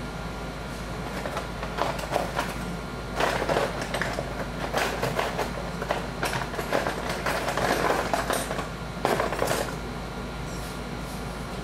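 Irregular rustling and scraping handling noises over a steady low hum, stopping near the end.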